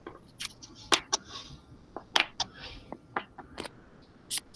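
About eight sharp, irregular clicks and taps with a little rustle between them, from a computer's mouse and keyboard being worked while a screen share is switched.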